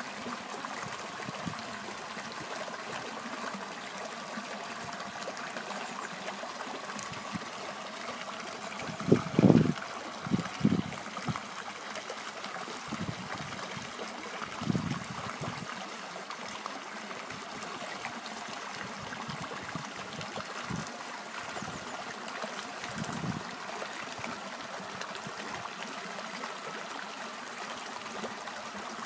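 Running water flowing steadily, like a small stream. A few louder low bumps break in about nine to eleven seconds in and again around fifteen seconds.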